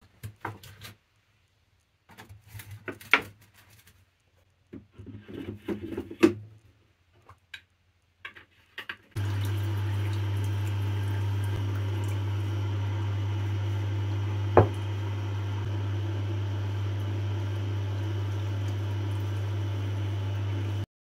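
Knocking and clattering of wheels and parts being handled as the Tormek T-4 sharpener's stone is swapped for the SJ-200 waterstone. About nine seconds in, the Tormek T-4's motor switches on and runs with a steady low hum, with one sharp click about five seconds later.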